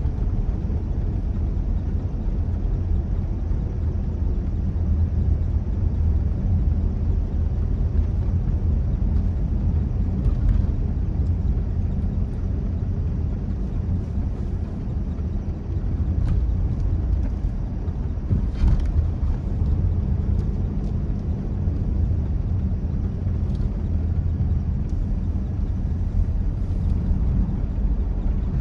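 Steady low rumble of a car on the move, its engine and tyres making an even drone.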